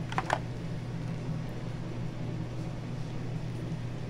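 Steady low background hum, with two brief sharp sounds just after the start while a cardboard eyeshadow palette is handled and opened.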